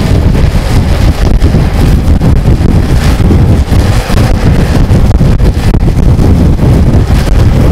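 Heavy wind noise buffeting the microphone at downhill longboarding speed, a continuous low rushing with no let-up.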